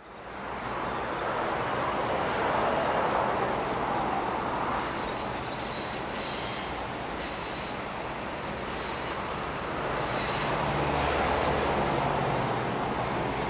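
Diesel railcar approaching on a curve, its wheels squealing in repeated high-pitched bursts. The low drone of its engine grows near the end.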